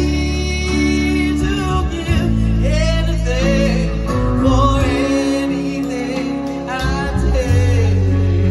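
Live band playing a song: a lead singer's wavering sung line over guitars, keyboards, bass and drums.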